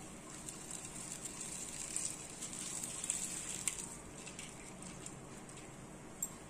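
Water at a rolling boil in a steel saucepan, bubbling steadily as dry millet noodles are dropped in, with a few light clicks of the noodle sticks against the pan.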